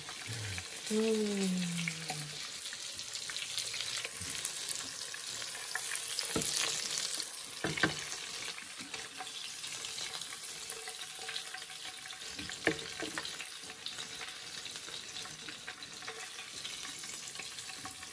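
Hot oil sizzling and crackling in a frying pan after chicken back pieces have been fried in it, with the burner just turned off. A few sharp clicks stand out, the clearest about six and eight seconds in.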